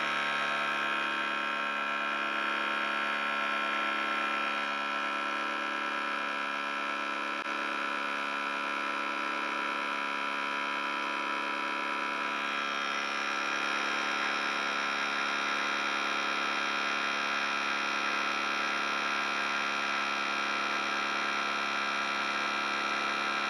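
Air Lift WirelessONE onboard air compressor running steadily, pumping the truck's air-spring suspension up toward its 50 psi set point.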